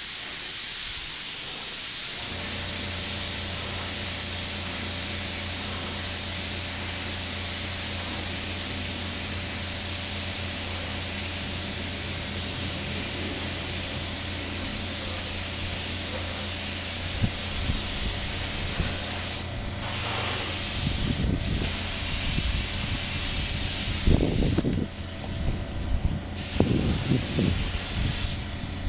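Paint spray gun hissing steadily as clear coat is sprayed onto painted body panels, with a steady low motor hum joining about two seconds in. Near the end the spraying stops and restarts several times.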